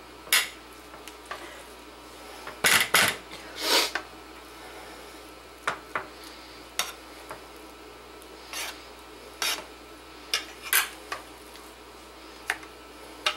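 Metal spoon scraping and clinking against a metal frying pan while spreading mashed potato into a layer: short, irregular scrapes, loudest about three seconds in.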